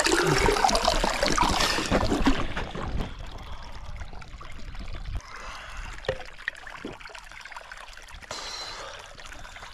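Spring water gushing from a plastic pipe into a plastic drinking bottle and splashing into the pool below, loudest for the first three seconds, then fading to a fainter trickle.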